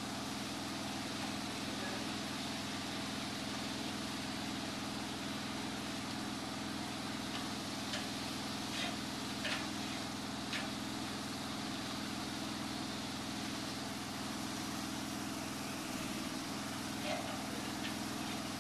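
Engine of a power-washing rig running steadily at a constant speed, under the even hiss of water spraying from a hand-held wand. A few short clicks come about halfway through and again near the end.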